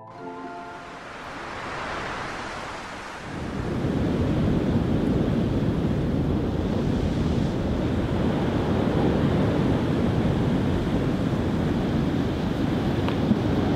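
Sea waves washing up a sandy beach, with wind on the microphone. A rushing wash swells about two seconds in; from about three and a half seconds the surf and wind buffeting become a loud, steady roar, with a faint tick near the end.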